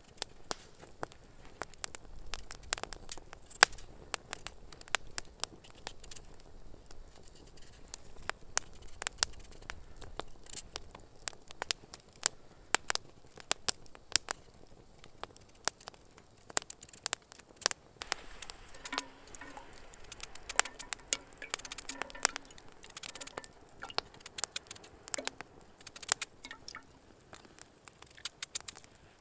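Small wood campfire crackling, with frequent sharp pops, under a hanging mess tin, along with the soft scraping and slicing of a knife peeling a potato.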